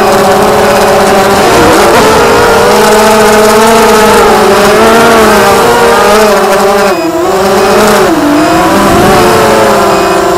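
Brushless motors and propellers of a Blackout Mini H FPV quadcopter whining, picked up by the onboard camera; the pitch rises and falls with the throttle, dips sharply about seven seconds in as the throttle is chopped, then climbs again.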